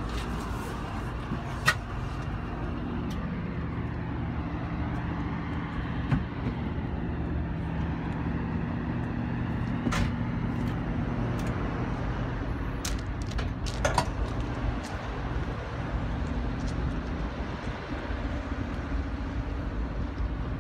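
GE ET44C4 locomotive's V12 diesel idling with a steady low hum. A few sharp clicks and knocks come through it, the loudest cluster about two-thirds of the way in.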